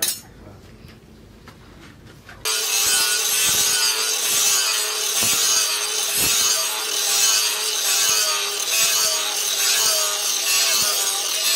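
Handheld angle grinder grinding a forged steel knife blade, a steady hiss of abrasive disc on steel with the motor's whine wavering slightly as the disc is pressed in. It starts suddenly about two and a half seconds in.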